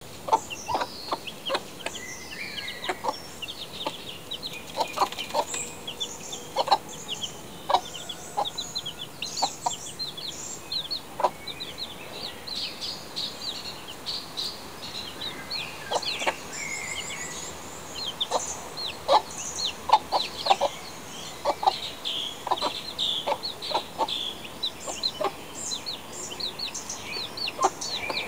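Young chickens peeping over and over, short high notes falling in pitch, mixed with short lower clucking notes.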